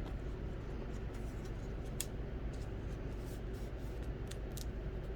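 Trading cards being handled and slid against one another as a pack is sorted: a few short, soft scrapes and flicks over a steady low hum.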